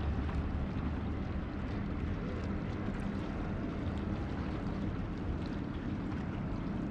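Steady wind noise on the microphone, a low rumble, over a wash of rippling water.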